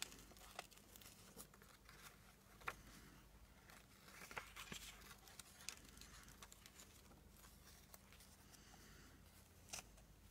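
Faint rustling and scattered small clicks of paper and ribbon being handled.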